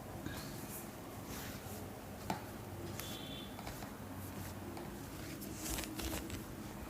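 Hands rubbing and kneading a head and hair: soft swishing and rustling, with one sharp click a little over two seconds in.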